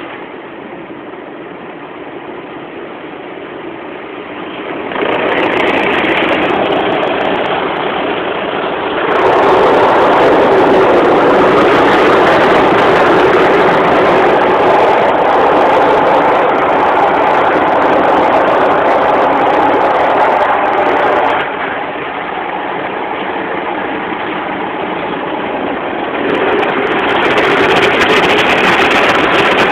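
Automatic car wash heard from inside the car: spinning wash brushes and water sweeping over the windscreen and body in a steady, loud rush. It grows louder about five seconds in and again about nine seconds in, eases off for a few seconds past the twenty-second mark, and swells again near the end.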